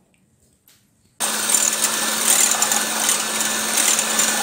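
Electric hand mixer switched on about a second in and running steadily with a constant hum, its beaters whisking eggs in a bowl.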